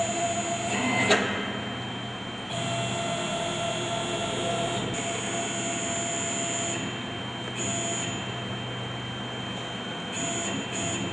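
CNC engraving router's axis drive whining as the spindle head is jogged along the X axis, in runs that start and stop, which can carry the head out past the end of its travel. There is a single sharp click about a second in.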